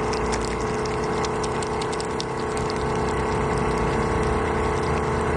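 Hantop electric goat milking machine's vacuum pump running with a steady hum, drawing milk through the teat cups.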